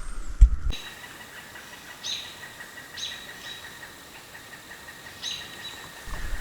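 A sharp knock about half a second in, then a bird calling three times, each call a short downward slide into a brief held note, over a faint steady hiss.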